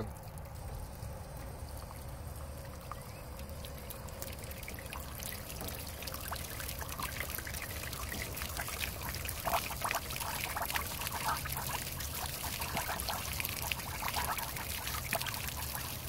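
Water gushing and splashing out of the drain opening of an Atwood 6-gallon RV water heater as city water pressure flushes loosened scale and sediment from the tank. The rush builds over the first few seconds, then splashes steadily and irregularly.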